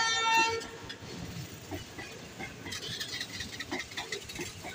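Passenger coaches rolling past, their wheels clicking and knocking irregularly over the rails. A held horn cuts off about half a second in.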